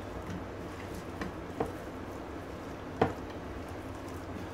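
Bare hand rubbing dry seasoning into raw chicken wings in a baking dish: soft, wet squishing of skin and meat, with a few sharp knocks as pieces hit the dish, the loudest about three seconds in.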